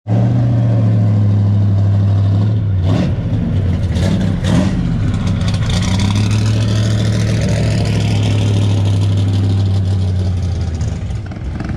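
A vehicle engine running loudly at a steady speed, broken by a few short bursts about three to four and a half seconds in, then steady again and easing off near the end.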